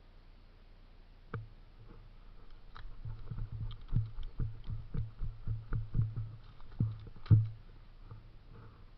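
A run of dull thumps with light clicks, about two a second for several seconds, the last one the loudest: footsteps and gear jostling a body-worn camera as the player moves.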